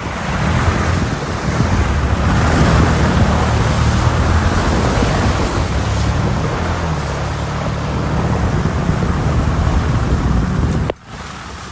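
Can-Am utility vehicle's engine running as it drives off, with steady wind buffeting the microphone. The sound cuts off abruptly for a moment near the end.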